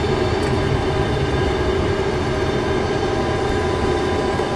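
Steady cockpit noise of a Tupolev Tu-154B-2 airliner taxiing with its three Kuznetsov NK-8-2U engines at idle: a low rumble under a steady whine of several tones.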